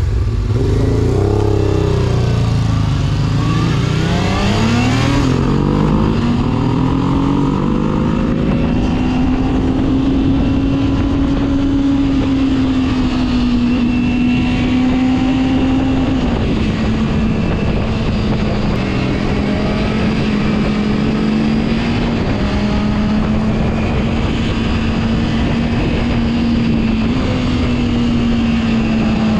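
Honda Hawk motorcycle engine pulling away and revving up through the gears, rising in pitch in a few steps over the first several seconds, then running at a steady pitch while cruising, with small dips as the throttle eases, over a constant rush of wind.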